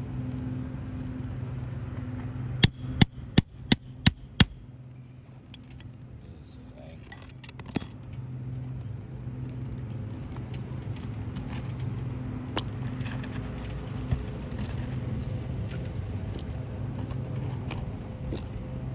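Six quick hammer blows, about a third of a second apart, then a few faint clicks and scrapes of tools against asphalt shingles. A steady low hum runs underneath.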